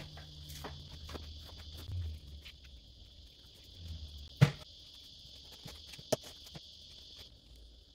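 Raw pork butt being handled and turned on a plastic cutting board: scattered soft knocks and clicks, with one louder thump about halfway through. A steady high-pitched trill runs underneath.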